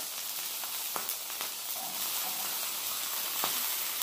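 Fried rice and a ribeye steak sizzling on a hot tabletop griddle, a steady hiss with a few sharp pops from the rice, which is popping like popcorn.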